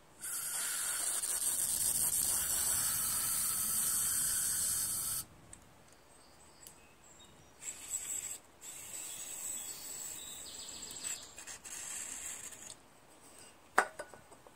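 Aerosol carburetor cleaner sprayed through a thin extension straw into a lawn-mower carburetor's passages to clean them: one long, loud hiss of about five seconds, then several shorter, quieter bursts. A single sharp click near the end.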